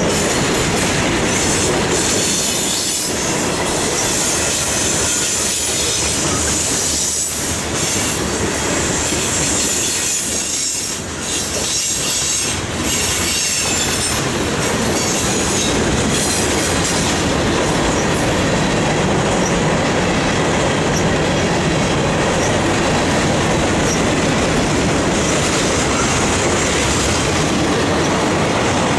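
Freight train cars rolling past close by on a curve: a steady rumble and clatter of steel wheels on rail, with a high wheel squeal against the rail that is strongest through the first half.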